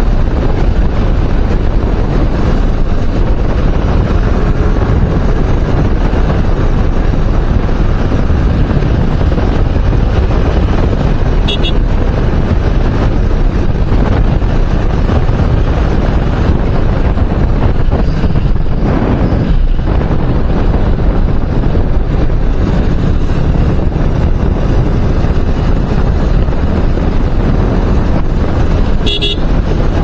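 Steady wind rushing over the microphone of a motorcycle on the move, with engine and road noise blended underneath. Two brief high-pitched toots cut through, about twelve seconds in and again near the end.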